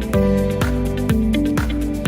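Background music: mellow instrumental with held notes and a steady beat of about two strokes a second.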